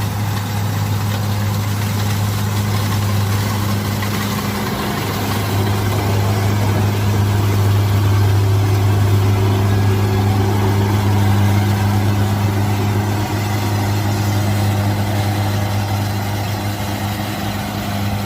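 Kubota DC-70 combine harvester running steadily while harvesting rice: a constant low diesel engine hum under a dense mechanical clatter.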